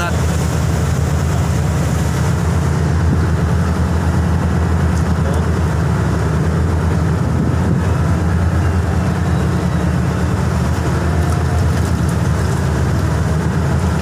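Steady low drone of a ship's engines, heard on deck, with the wash of a rough sea.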